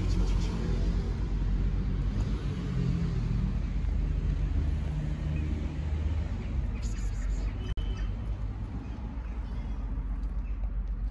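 Tabby kitten purring close to the microphone: a steady low rumble that eases a little near the end.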